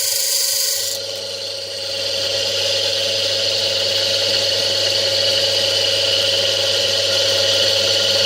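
Electric motor salvaged from a washing machine, running steadily with a whirring hum; about a second in the sound dips briefly, then picks back up and holds steady.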